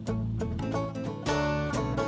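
Background music: a plucked guitar playing a run of separate notes.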